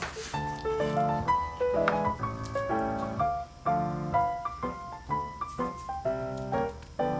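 Background music led by piano: a run of short, quick notes.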